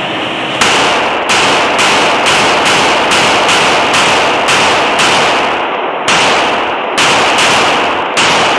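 A string of about fifteen handgun shots, fired about two a second, with a short break before the last three. Each shot echoes off the walls of the indoor range.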